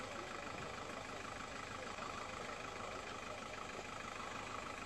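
A steady engine running at idle, a constant hum under the outdoor background.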